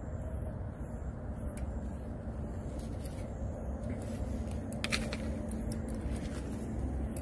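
Steady low outdoor rumble with a faint steady hum, and a few soft clicks about five seconds in.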